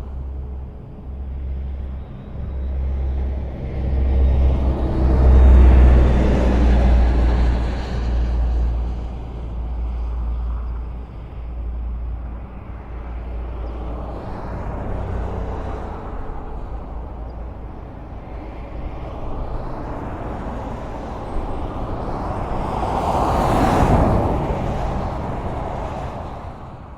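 Highway traffic: vehicles passing with a low rumble that swells to its loudest about five seconds in. A single close vehicle passes near the end, and then the sound begins to fade out.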